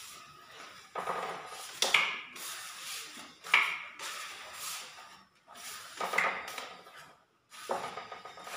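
Trowel scraping skim coat across a wall in several separate strokes, a second or two apart. Some strokes carry a brief high ring from the blade.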